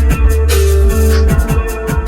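Background music with bass, guitar and a steady drum beat.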